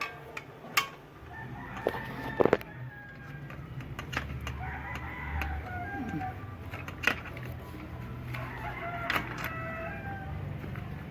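Chickens clucking and a rooster crowing, with a few sharp clicks and knocks in between.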